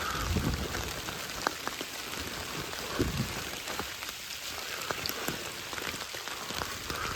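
Steady rainfall, with scattered individual drops ticking close to the microphone.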